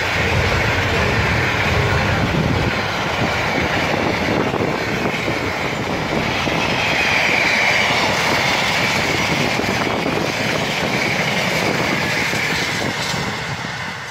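Freight train of container wagons rolling past close by: a steady rumble and clatter of wagon wheels on the rails with a wavering high wheel-on-rail whine, fading near the end as the last wagons draw away.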